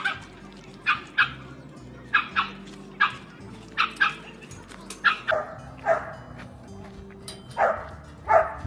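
A dog barking repeatedly: short, sharp barks, often in quick pairs, about one a second.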